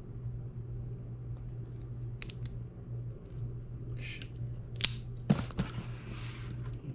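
A sharp click as a folding knife is handled near the end, then about a second of scraping and rustling as the blade goes to the cardboard box's taped top, over a steady low hum.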